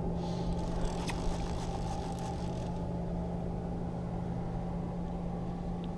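An engine running steadily with an even low hum, with a couple of faint clicks early on.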